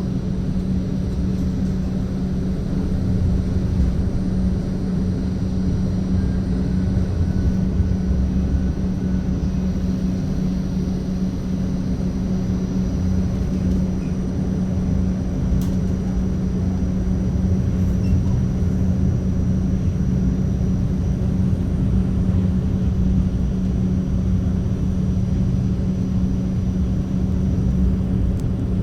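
Modern tram running, heard from inside the passenger car: a steady low rumble with a constant hum.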